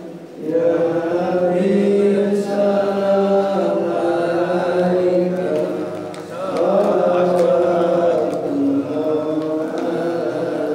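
A man chanting solo into a handheld microphone in long, drawn-out melodic phrases. There is a brief break about six seconds in.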